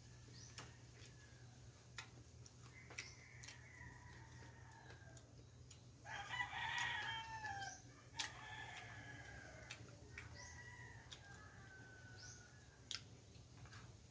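A rooster crowing once, about six seconds in: a long call that drops in pitch at the end. Fainter drawn-out calls sound before and after it, along with a few light clicks.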